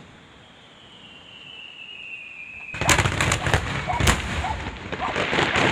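Fireworks display: a long whistle falling slowly in pitch, then from about three seconds in a rapid run of loud bangs and crackling bursts.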